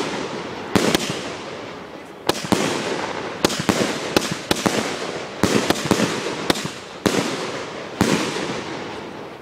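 Consumer aerial fireworks going off in quick succession: about a dozen sharp bangs at irregular intervals, some in quick pairs or triples, each followed by a fading hiss as the bursts spread overhead. The bangs thin out near the end.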